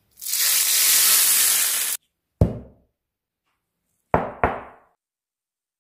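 Hot ghee poured from a frying pan onto yogurt and fried almonds, sizzling loudly for about two seconds before cutting off suddenly. Then three sharp knocks as a cutting board is set down on the counter, the last two in quick succession.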